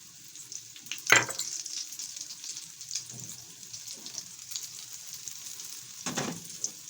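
Potato chips and beaten egg sizzling as they fry in a pan, a steady hiss. Two sharp knocks cut through it, the louder about a second in and another near the end.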